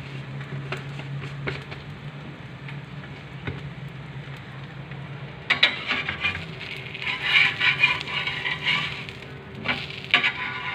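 A metal spatula scrapes and clatters against a frying pan as an egg-and-bread sandwich is slid around and flipped over, with the frying sizzle beneath. The scraping starts about halfway through and comes again briefly near the end, after a first half of only a steady low hum.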